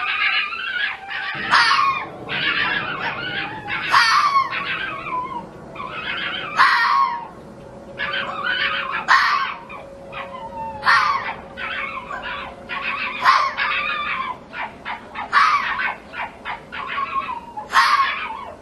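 A fox giving a series of harsh screaming calls, about eight of them, roughly every two to two and a half seconds. Each call drops in pitch at its end, and shorter yelps come between the calls in the second half.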